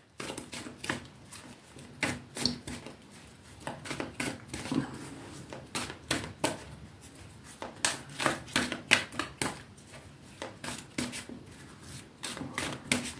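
A tarot deck being shuffled by hand: quick, irregular soft clicks of cards sliding and tapping against each other, several a second.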